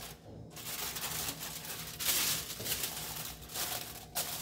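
Aluminium foil crinkling and rustling as it is handled, in uneven bursts, the loudest about two seconds in.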